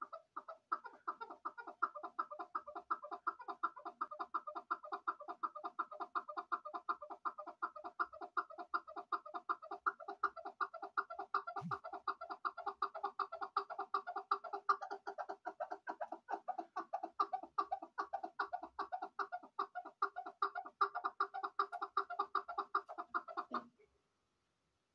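Chukar partridge calling: a long, unbroken run of rapid, rhythmic clucking notes that stops abruptly about a second before the end.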